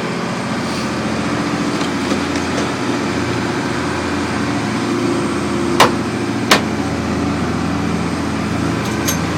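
A boat's engine running steadily, with two sharp knocks a little under a second apart about six seconds in.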